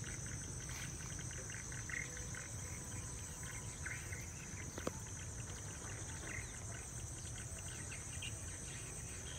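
Steady high-pitched chorus of insects in a tropical garden, with short bird chirps scattered over it and a low rumble underneath. A single sharp click about five seconds in.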